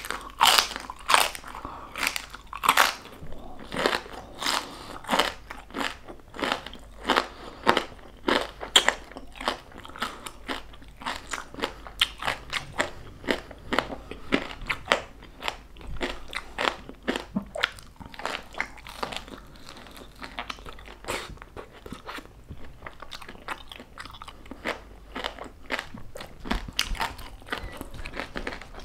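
Crunching and chewing of crispy pata, deep-fried pork knuckle with crackling skin: a long run of sharp crunches, louder in the first half.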